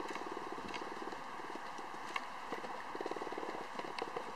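A ridden horse blowing two fluttering snorts through its nostrils, a second or so each, with soft hoofbeats on arena sand.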